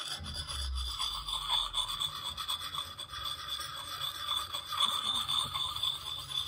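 Lansky sharpening puck's coarse side rubbed against the steel edge of an old hatchet: a continuous gritty rasp of stone on steel.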